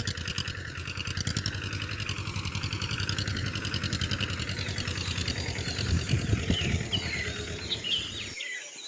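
A small motor of a DIY miniature machine running steadily with a rapid pulsing rattle, with short chirps over it in the second half. It cuts off suddenly shortly before the end.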